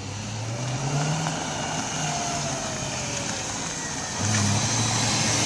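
Car engine pulling while driving, its pitch rising about a second in and then easing off, with a louder surge of acceleration about four seconds in, over steady road noise.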